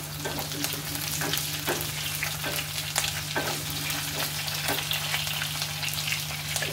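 Pieces of mutton sizzling in hot oil in a nonstick kadai while a spatula stirs them. The spatula scrapes and taps against the pan every second or so. A steady low hum runs underneath.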